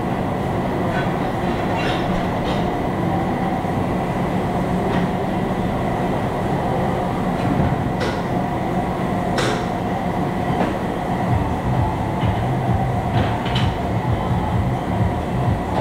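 Steady mechanical drone of tire-shop machinery, with a few short knocks and clicks as a large truck tire is handled on a tire changer.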